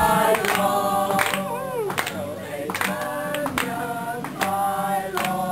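A group of people singing a birthday song together without accompaniment, clapping along in time.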